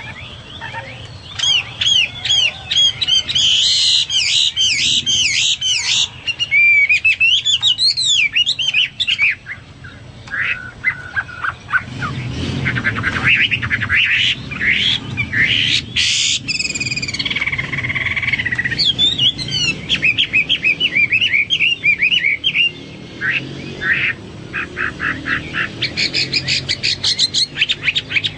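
Hwamei (Chinese hwamei, melodious laughingthrush) singing a varied song of whistled phrases with swooping up-and-down notes. A harsher, noisier stretch comes midway, and the song breaks near the end into fast runs of repeated notes.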